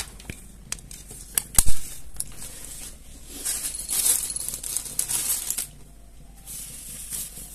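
A few sharp knocks and clicks as a phone is set down on a tiled floor, the loudest about one and a half seconds in, then plastic packaging crinkling and rustling as it is handled.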